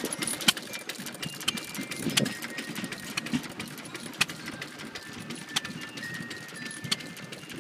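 Small vintage stationary engines running: sharp ticks and pops at irregular intervals over a low steady hum, loudest in the first couple of seconds.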